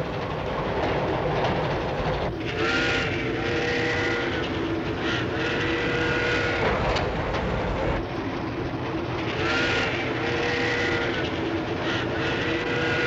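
Steam train running with a steady rumble and wheel clatter, its whistle blowing several long chord-like blasts.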